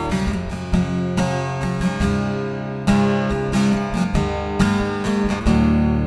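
Acoustic guitar strumming chords.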